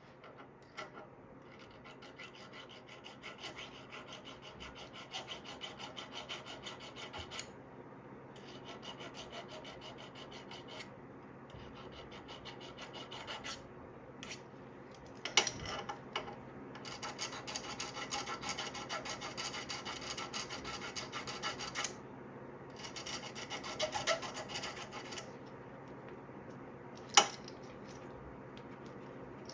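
A hand file rasping in quick, even back-and-forth strokes, in several spells with short pauses between them, and a couple of sharp clicks, one about halfway and one near the end.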